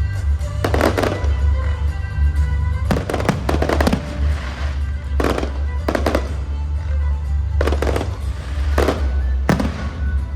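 Fireworks going off in several sharp crackling bursts, over loud music with a heavy steady bass.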